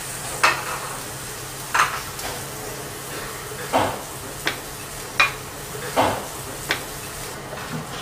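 A slice of foie gras searing in a hot pan, a steady sizzle, with several short knocks and scrapes of the pan about once a second. The sizzle stops near the end.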